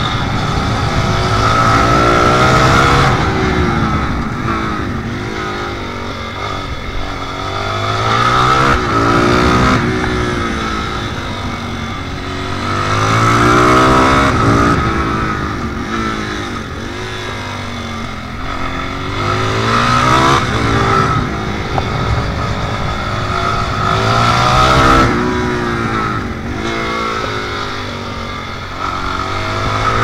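Suzuki DR-Z400 supermoto's single-cylinder four-stroke engine, heard from on board, revving hard up through the gears and then dropping back, about five times over.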